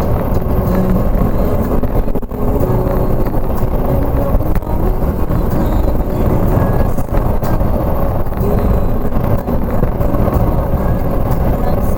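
Steady low rumble of a car driving, loud throughout.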